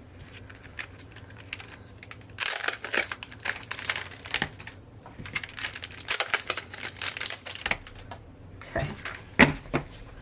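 Packaging crinkling and rustling in several spells as a set of photo cards is pulled out of its wrapper, with a couple of light knocks near the end.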